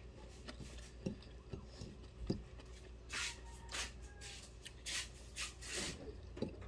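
Quiet eating sounds: a few light clicks, then from about three seconds in several short scrapes of a plastic fork on a plate, along with chewing.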